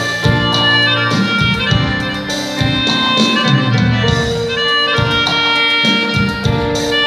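Live instrumental band music: a lead melody of held notes over bass and drums.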